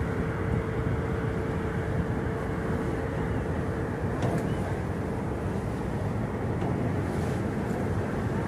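Steady rumble of a passenger ferry under way, with a steady hum that fades out about halfway through.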